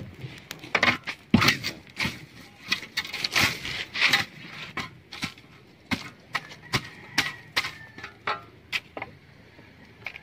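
Dry palm fronds crackling and snapping as they burn under a boat's hull: irregular sharp pops, thicker in the first half and thinning out later.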